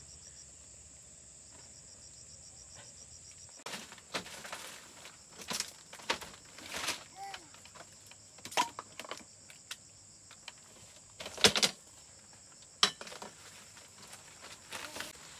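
Steady high-pitched insect drone, with irregular knocks and clatters starting about four seconds in, the two loudest about three-quarters of the way through.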